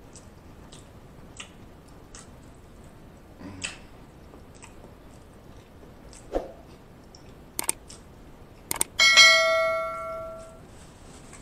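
Soft chewing and mouth sounds, then near the end a few sharp clicks followed by a bright bell ding that rings out for about a second and a half: the sound effect of a YouTube subscribe-button and notification-bell animation.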